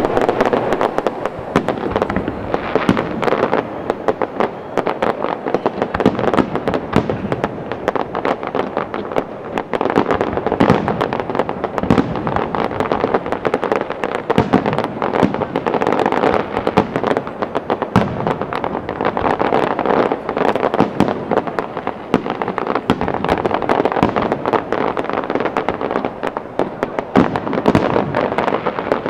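Aerial fireworks display: a dense, unbroken barrage of shell bursts and crackling bangs.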